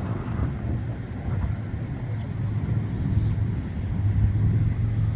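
Street traffic: a steady low vehicle engine rumble that grows louder over the last couple of seconds.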